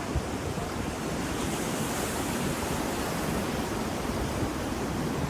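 Ocean surf: a steady wash of waves on the shore, swelling in hiss about two seconds in. A brief low thump comes just after the start.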